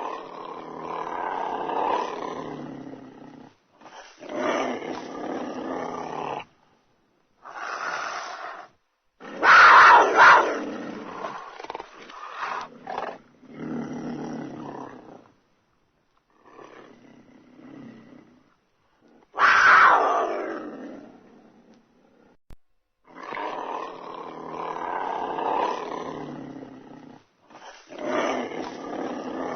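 A wild cat calling in a string of harsh vocal bouts, each a second to a few seconds long with short pauses between. The loudest come about ten and twenty seconds in, the second sliding down in pitch.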